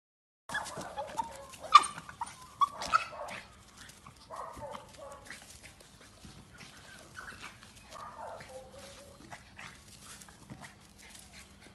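A dog barking and whining, with several sharp, loud barks in the first few seconds, then quieter whines and yips.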